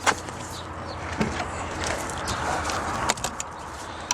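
A few sharp clicks and knocks, as of metal parts being handled, over a steady low hum.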